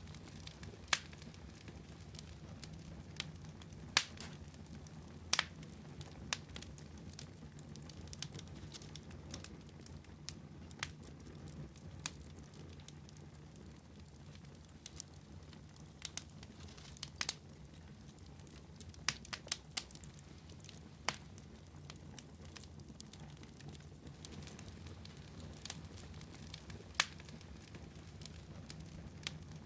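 Fireplace fire crackling: irregular sharp pops and snaps, a few louder ones spaced seconds apart, over a low steady rumble.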